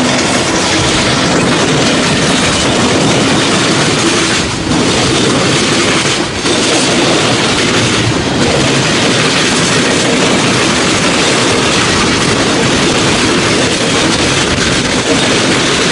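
Freight cars of a passing freight train rolling by close at hand, a loud steady rumble with the clickety-clack of wheels on the rail joints.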